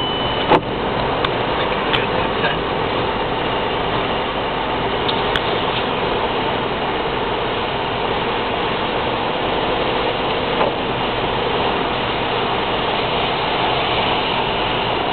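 Cabin noise of a car driving on a motorway: steady engine drone and road noise, with one sharp click about half a second in.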